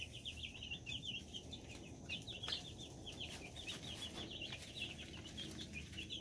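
A brood of week-old Rhode Island Red and Cornish Rock chicks peeping continuously, many short high chirps overlapping, with faint scattered ticks.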